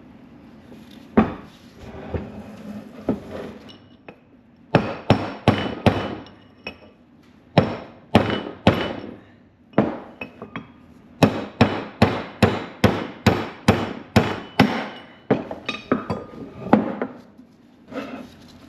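Repeated hammer blows driving an old inner wheel-bearing race out of a truck's front hub, sharp metal-on-metal strikes with a short ring. They come in irregular groups, at times about three a second, with pauses as the strikes work around the race's lip.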